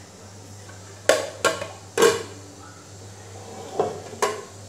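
A ceramic plate and a glass bowl clinking and knocking on a stone countertop as they are handled: five sharp clatters with short ringing, three close together in the first half and two near the end.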